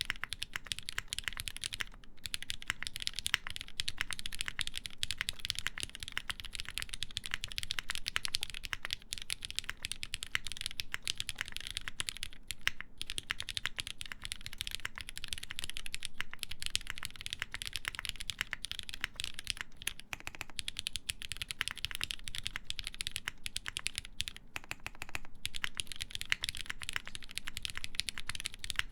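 Fast, continuous typing on a mechanical keyboard with lubed linear Cherry MX Black switches, half-aluminum plate and GMK (ABS) keycaps: a dense stream of key strikes and bottom-outs, with brief pauses around two seconds in and near the middle.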